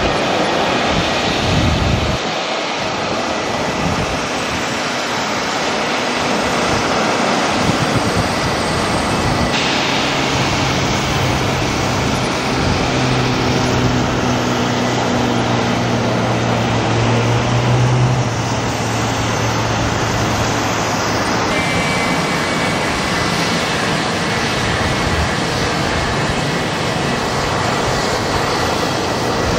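Cirrus single-engine piston propeller airplane at full power on its takeoff roll and climb-out, its engine drone swelling as it passes. In the last third, a twin-engine business jet taxiing, its engines giving a steady high whine.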